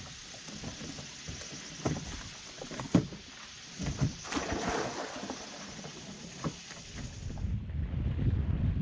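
A boat under way on the water: water rushing and splashing along the hull, with a few sharp knocks. Wind rumbles on the microphone, building near the end.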